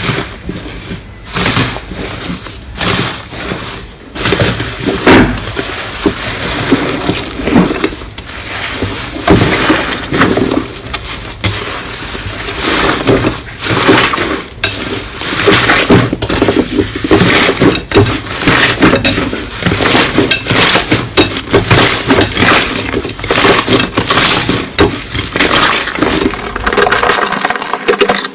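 Slime being squeezed and pressed close to the microphone, with dense, irregular crackling and clicking throughout.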